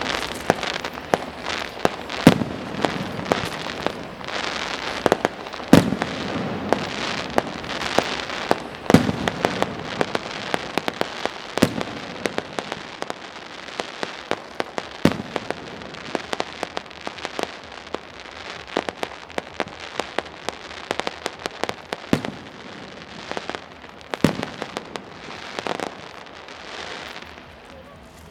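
Aerial fireworks going off: a string of sharp bangs from bursting shells at irregular intervals over a continuous crackling hiss.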